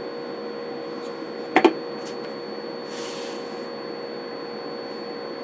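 A steady high test tone of about 5 kHz from the bench test equipment, over a steady hiss and hum. A sharp double click comes about a second and a half in, a key on the test set being pressed.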